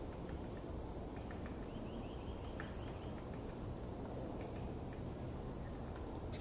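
Outdoor ambience: a steady low background rumble with faint bird chirps scattered through it, including a quick run of short, rising chirps about two seconds in.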